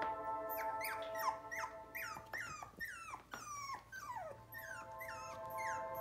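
27-day-old Miniature Australian Cattle Dog puppies whimpering and yipping, a quick run of short high cries that slide down in pitch, about three a second.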